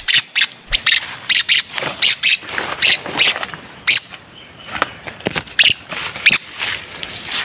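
Philippine hanging parrot (kulasisi) giving an irregular run of short, shrill squeaks, several a second.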